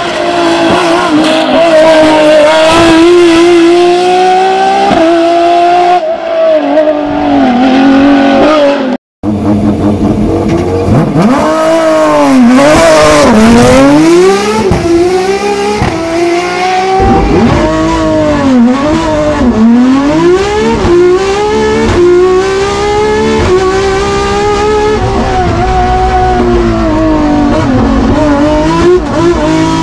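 Naturally aspirated 3.3-litre BMW S38 straight-six in a Ford Escort Mk2 hillclimb car, revving very high and held there at first, then repeatedly climbing in pitch and dropping sharply as it shifts gear and slows for bends. In the later part it is heard from inside the cabin.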